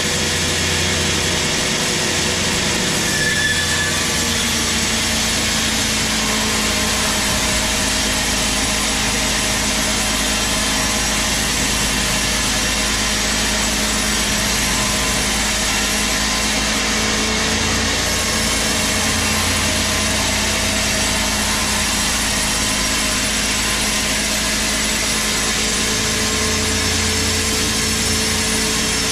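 A large industrial band saw running steadily while it cuts lengthwise through a big teak log.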